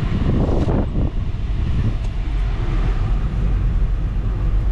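Steady low rumble of a car's engine and tyres on the road, heard inside the moving car's cabin, with a brief swell of noise about half a second in.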